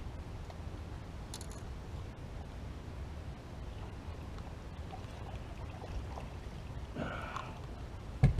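Steady low rumble with a few faint ticks, a brief faint voice about seven seconds in, and a single sharp knock just before the end.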